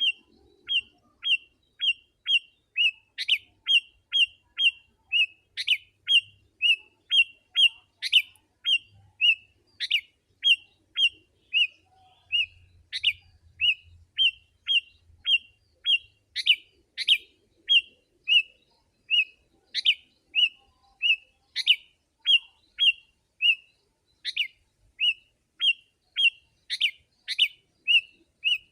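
Sooty-headed bulbul (kutilang) calling in a fast, steady series of short chirps, about two a second, some louder and sharper than others.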